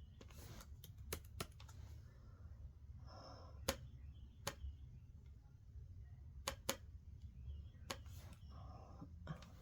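Faint room tone with a steady low hum, broken by about eight scattered sharp clicks, some in quick pairs, and a few short soft hissy sounds.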